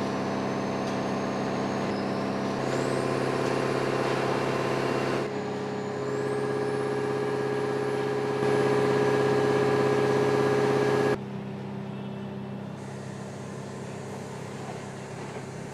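Steady mechanical hum of tractor engines and powertrains running on factory test benches. A high whine rises twice in the first half, and the hum jumps abruptly in level and pitch several times, dropping quieter about two-thirds of the way through.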